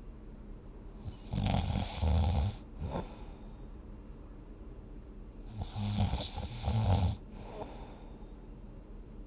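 Snoring in sleep: two long, rattling snores about four seconds apart, with quieter breathing between them.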